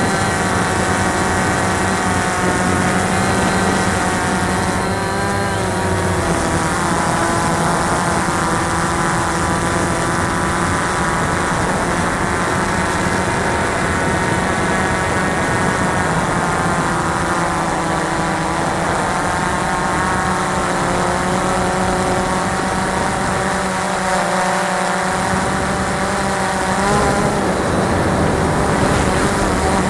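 Cheerson CX-20 quadcopter's four brushless motors and propellers whining steadily, heard close up from the camera carried on the drone. The pitch of the whine shifts up and down a few times as the motors change speed to steer.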